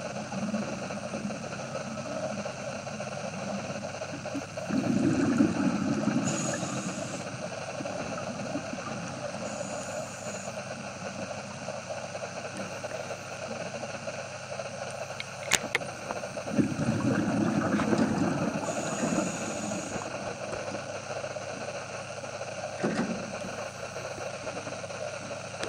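Underwater sound: a steady low drone, broken twice by loud bursts of bubbling, about five seconds in and again past the middle, from a diver's exhaled air, with a sharp click just before the second burst.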